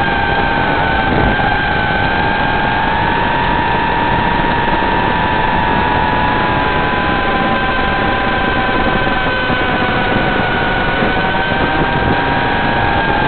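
Small FPV quadcopter's electric motors and propellers whining steadily in flight, the whine drifting slightly in pitch as the throttle changes, under a heavy hiss.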